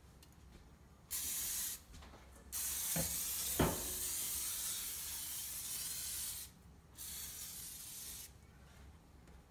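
Aerosol cooking-oil spray hissing into a frying pan in three bursts: a short one, a long one of about four seconds, and a shorter, quieter one near the end. Two light knocks sound during the long spray.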